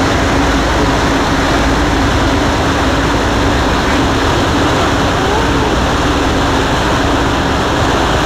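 Boat engine running steadily underway, a constant low hum under a loud rush of water.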